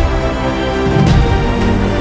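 Background music: held notes over a steady beat, with a strong drum-and-cymbal hit about a second in.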